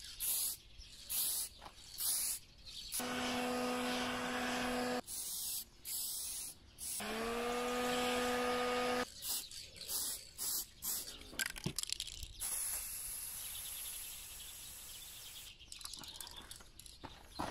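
Aerosol can of clear lacquer sprayed in short hissing bursts about half a second apart, with a longer steady spray later on. In between, a Ferm electric heat gun runs twice for about two seconds each, its fan motor humming at a steady pitch; the second time it spins up with a rising pitch.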